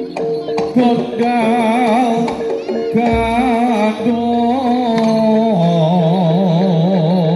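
Live jaranan music from a Javanese gamelan-style ensemble: a wavering, heavily ornamented melody over drumming, with a deep stroke about three seconds in.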